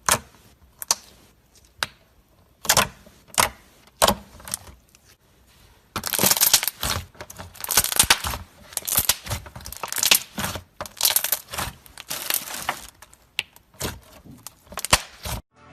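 Slime being squeezed and poked by hand, giving sharp wet pops and clicks: single pops at first, then about six seconds in a dense run of crackling as it is worked faster, thinning back to a few pops near the end.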